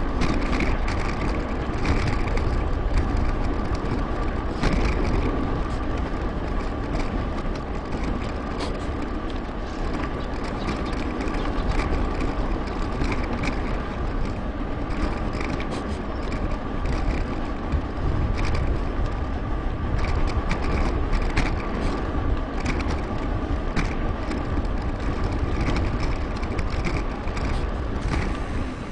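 A bicycle riding along a path, heard as steady wind buffeting on the microphone and tyre rumble, with frequent small clicks and rattles from the bike and a faint steady hum.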